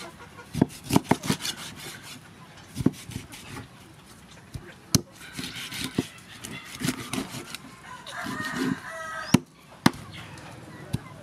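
Cleaver chopping through a whole fish into steaks, the blade knocking against a wooden chopping board in sharp separate strikes every second or so. Chickens call in the background, and a rooster crows for over a second about eight seconds in.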